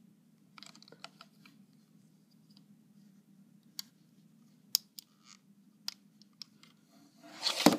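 Faint scratching and a few sharp little clicks as a metal hook and rubber bands work against the plastic pins of a rubber-band loom, over a low steady hum. A louder rustle of handling comes near the end.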